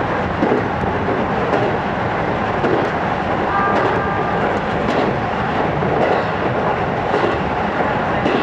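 Running noise inside a JR East 205 series electric train car at speed: a steady rumble of wheels on the rails, with faint rail-joint clicks.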